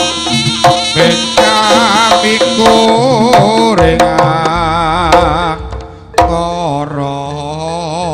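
Live Javanese jaranan gamelan music: kendang hand drums and struck percussion beat under a wavering, reedy wind melody. The music dips briefly about six seconds in, then comes back with a loud strike.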